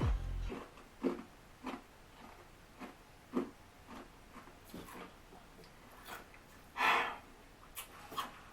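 Hard ice cubes soaked in Fanta being chewed close to the mic: short, separate crunches every half second to a second, with one longer, louder one about seven seconds in.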